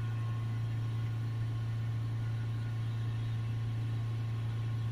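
Mark 7 Ford Transit's diesel engine held steadily at raised revs, heard from inside the cab, during a DPF back-pressure check.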